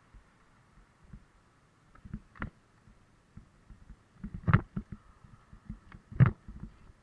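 A bicycle jolting over bumps in the road surface: a scatter of short, low knocks and rattles, with three harder thumps about two, four and a half, and six seconds in, the last the loudest.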